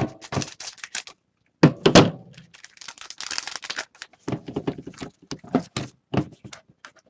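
Trading card packaging being opened and handled by hand: a string of irregular clicks, taps and crinkling, with a louder thump about two seconds in.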